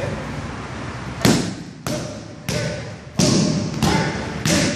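Muay Thai pad work: gloved strikes slapping into Thai pads in a steady combination. Six sharp impacts come about every two-thirds of a second, starting just over a second in.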